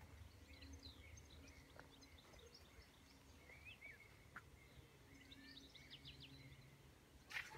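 Faint birdsong: scattered short chirps and twittering calls from small songbirds over a faint low hum, with a brief hiss near the end.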